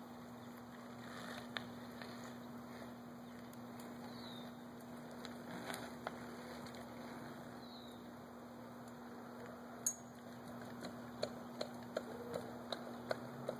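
Faint quiet-street ambience with a steady low hum and two short high chirps. Near the end comes a run of light, evenly spaced ticks, about two or three a second.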